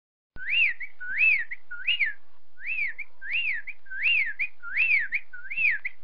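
A bird repeating one clear whistled note over and over, each rising then falling in pitch, about one and a half notes a second, starting about half a second in.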